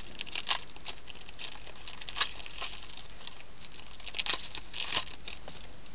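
Baseball card pack wrappers and cards being handled: irregular crinkling and rustling with scattered sharp clicks, the sharpest about two seconds in and a cluster near the end.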